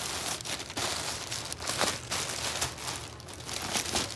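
Thin plastic poly mailer bag crinkling and rustling in the hands as a black crossbody bag is pulled out of it, in quick irregular crackles.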